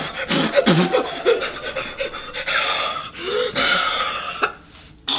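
A person's excited wordless vocalising: gasps and short cries that bend up and down, with heavy breathing, over a few seconds.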